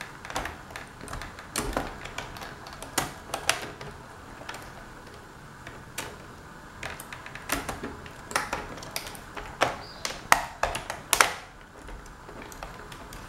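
Plastic keyboard bezel strip of a Toshiba Satellite laptop being pressed down into place: an irregular series of sharp plastic clicks and snaps as its clips catch along the strip.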